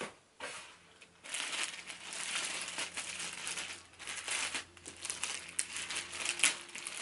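Clear plastic bag crinkling as it is handled and pulled open, starting about a second in, with sharper crackles near the end.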